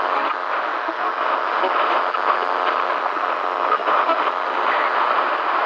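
Weak-signal news broadcast sound effect: steady crackling static and interference hiss, thin and band-limited like a badly received radio or TV signal.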